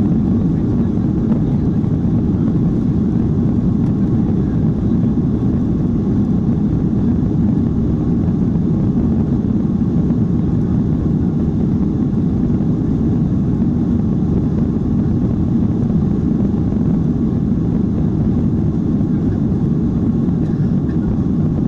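Inside the cabin of a Boeing 737-900ER on its takeoff roll: its CFM56-7B turbofan engines at takeoff power and the wheels running on the runway, heard as a steady, deep, even noise with no let-up.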